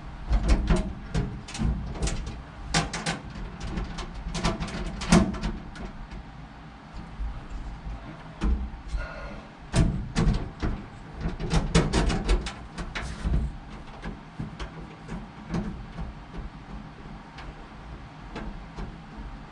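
Clicks and knocks of a mounting bracket and its bolts being handled and fitted into place over rivet nuts, in two busy flurries, the first a few seconds long and the second shorter about ten seconds in, with quieter fumbling noise after.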